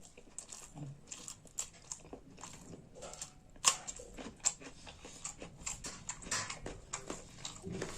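Close-up chewing of a mouthful of rice and saag, with irregular wet mouth clicks and smacks; one sharper smack about three and a half seconds in.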